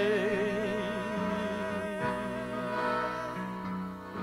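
Live band performance: a singer holds one long, wavering note with strong vibrato over instrumental accompaniment. The note fades near the end.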